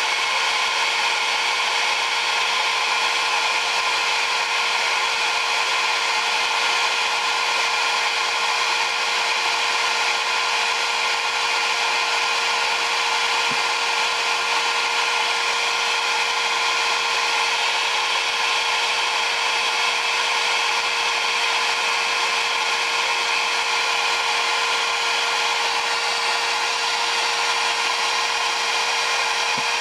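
A computer power supply running: a steady whirring hiss with a constant mid-pitched whine underneath, unchanging throughout, with one faint tick about halfway through.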